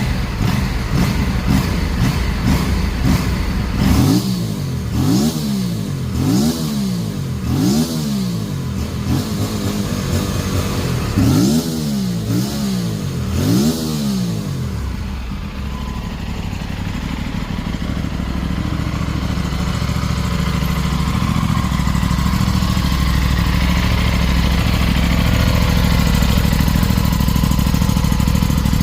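Aprilia RS457 parallel-twin motorcycle engine through its stock exhaust. It starts with quick throttle blips, then revs up and down about once a second for ten seconds or so, then settles into steady running that slowly grows louder.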